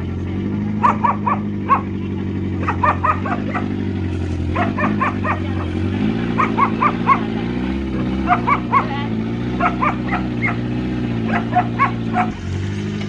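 A dog barking in quick bursts of three or four, roughly once a second, over a car engine running steadily under load, its note shifting about halfway through.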